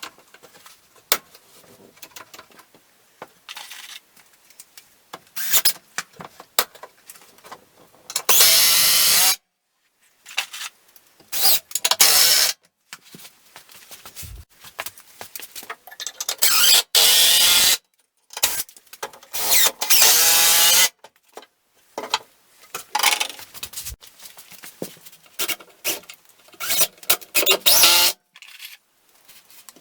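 Several bursts of a power tool running, each about a second long, with clinks and knocks of tools and lumber being handled between them.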